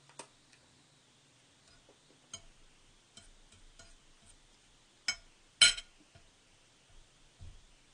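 Close-miked eating of spaghetti: quiet chewing and mouth sounds, with a metal fork clicking against a plate. Two sharp clinks about five seconds in are the loudest.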